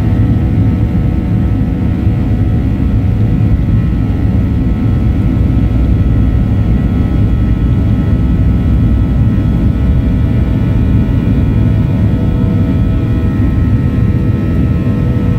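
Airliner engines at takeoff power heard from inside the passenger cabin: a loud, steady low rumble with several steady whining tones above it.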